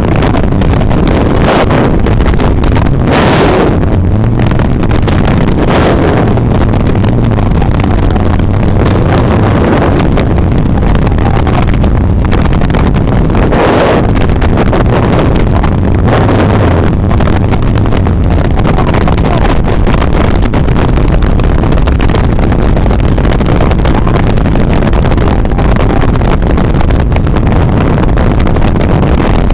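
Loud, steady rush of wind buffeting the microphone, with a low engine drone underneath and a few stronger gusts.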